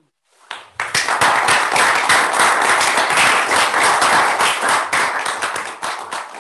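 Audience applauding, many hands clapping together. It builds within the first second and thins slightly near the end.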